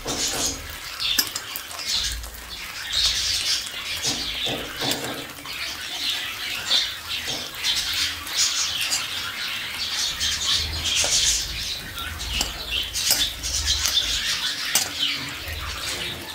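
Gima shak fritters sizzling and crackling in hot oil in a metal wok, with a metal spatula pressing and scraping against the pan now and then.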